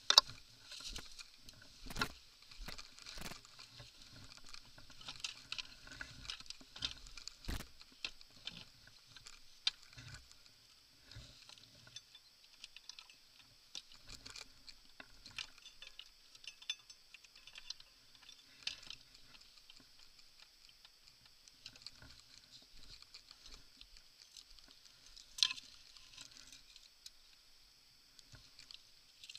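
Irregular knocks, clicks and light rattles over a faint steady hiss. The loudest are near the start and about 25 seconds in. No engine is heard.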